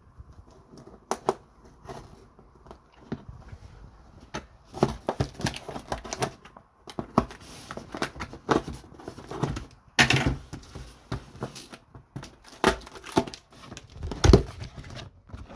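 A parcel being torn open by hand: packaging tearing and crinkling, with irregular knocks and scrapes and one sharper thump near the end.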